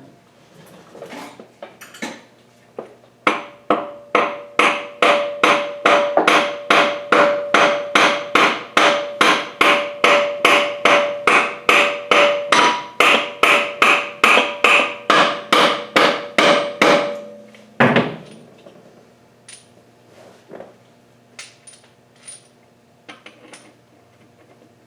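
A hammer striking metal in a steady run of blows, about three a second for some fifteen seconds, each blow with a short metallic ring. A few light clinks follow after the hammering stops.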